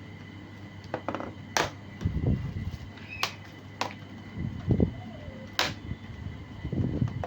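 Plastic case of an Acer Aspire ES1-132 laptop being handled and opened: about five sharp plastic clicks spread out, with low rubbing and knocks from handling between them.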